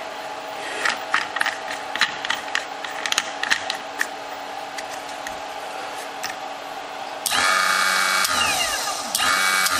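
Clicks and rattles of a foam RC-car tyre being fitted and tightened onto the axle of a Hudy tire truer. Then the truer's electric motor runs twice in short bursts of about a second each, each ending in a falling whine as it spins down.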